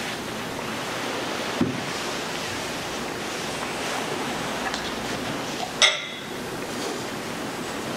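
Steady hiss of room noise, with a soft thump about a second and a half in and a sharp clink of glass near six seconds in as a glass cruet on the altar is handled.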